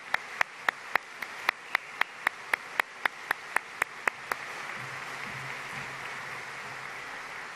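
Audience applauding. Over it, one person's claps close to the microphone stand out as sharp, even claps about three or four a second, stopping a little past halfway while the applause carries on.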